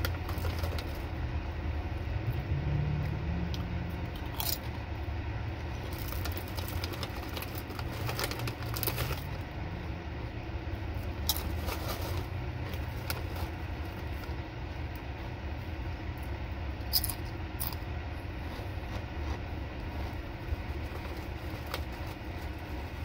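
Crinkling of a foil chip bag as a hand rummages in it, and crunching of chips being chewed, in scattered short crackles over a steady low hum.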